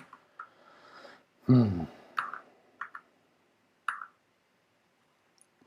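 A short hummed vocal sound, falling in pitch, about a second and a half in, followed by a few soft clicks.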